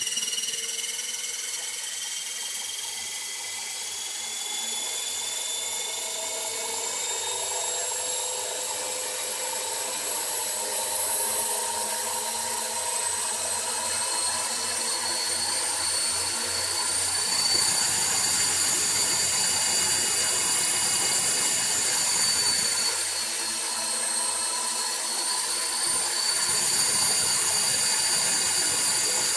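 Skya 450 V3 450-size electric RC helicopter running, with a piercing high-pitched whine made of several tones. The tones rise in pitch over the first several seconds and then hold, shifting a little later on. The owner cannot place the whine and suspects the main gear, a slack belt or the motor.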